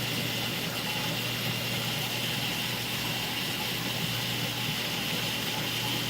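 Steady hum and hiss of aquarium pumps and filtration with water running, unchanging throughout.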